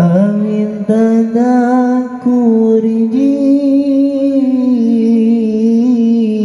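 A solo voice chanting in long, drawn-out melodic phrases whose pitch glides slowly up and down, with short breaks for breath.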